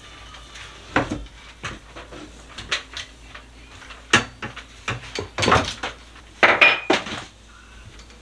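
Household items clinking and knocking as they are handled and moved off a small metal-framed cart and its baskets: scattered irregular clatters, with a sharp knock about halfway through and busier clusters of clatter shortly after.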